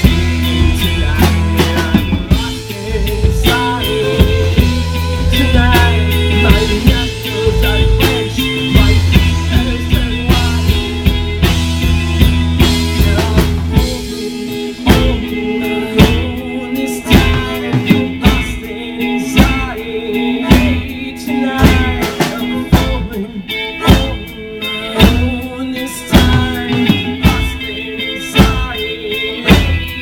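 Live rock band playing amplified, with drum kit, electric and acoustic guitars and fiddle. A heavy held bass fills the first half, then drops away about halfway through, leaving sharp drum hits on a steady beat under the guitars.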